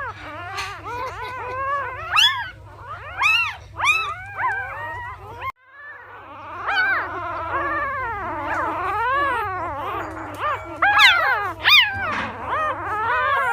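Several newborn puppies, about three days old, whining and yelping over one another in high, wavering cries, with a brief break about five and a half seconds in.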